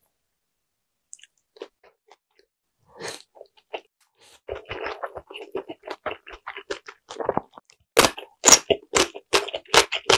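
Close-miked chewing of a large Korean dumpling (mandu): a bite about three seconds in, then chewing that grows louder and settles into a regular rhythm of about three chews a second near the end.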